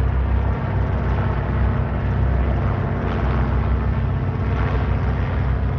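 Engine noise of an aircraft coming towards the listener on the airfield, swelling a little partway through, over a heavy low rumble of wind on the microphone.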